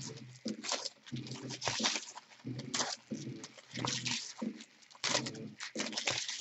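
Foil trading-card pack wrappers being torn open and crinkled by hand, in quick irregular rustles.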